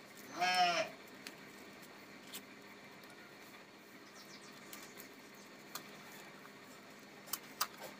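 Styrofoam boat hull squeaking once, briefly, as hands grip and turn it, about half a second in. A couple of light handling clicks follow near the end over faint room hiss.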